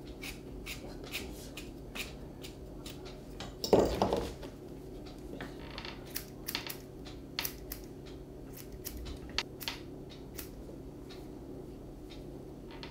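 Grooming scissors snipping through an Airedale Terrier's wiry coat: short, sharp snips at an irregular pace, over a steady low hum. A brief, louder bump comes about four seconds in.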